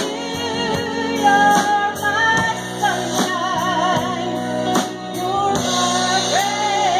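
Live country band: a woman singing lead into a microphone, with keyboard, electric guitar and a drum kit keeping a steady beat behind her. Her held notes waver with vibrato.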